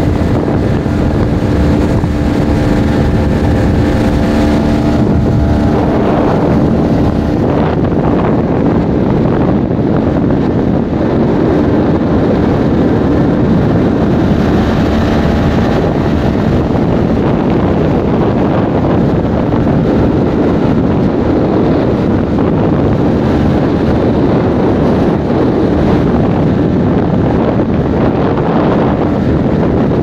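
Speedboat engine running steadily at speed, with wind buffeting the microphone.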